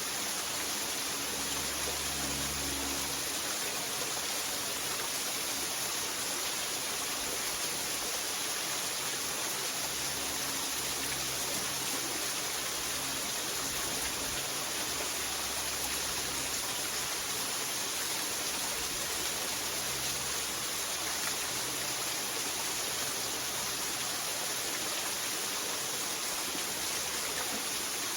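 Waterfall and running stream water rushing steadily, an even hiss with no breaks. A faint low rumble comes and goes underneath.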